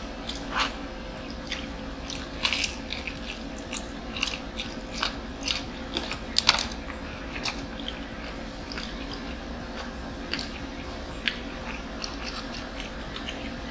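Close-up eating sounds: irregular crunching and chewing of crispy fried food, the loudest crunch about halfway through, over a faint steady hum.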